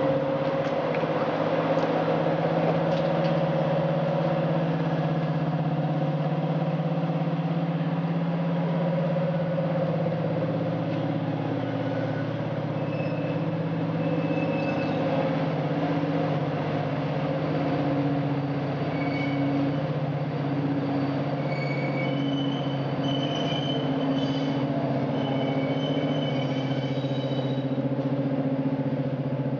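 British Rail Class 55 Deltic diesel locomotive, with its two Napier Deltic two-stroke engines, running steadily as it moves slowly along with its coaches. Short high squeals come and go in the second half.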